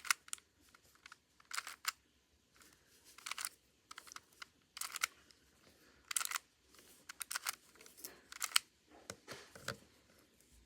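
3x3 Rubik's cube being turned by hand: short clusters of clicking plastic clatter from the face turns, about eight of them, one every second or so. These are the moves of an eight-move algorithm that swaps the cube's corners.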